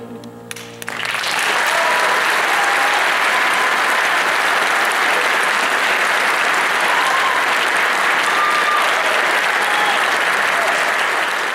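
The last held note of the song fades out, then audience applause starts about a second in and holds steady, with a few voices calling out above it.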